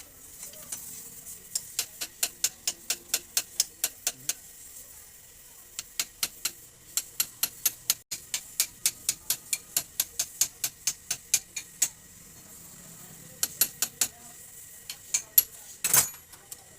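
Metal tool tapping on the steel parts of a motorcycle rear shock absorber: even, sharp clinks about four a second, in three runs with short pauses between, then one louder knock near the end.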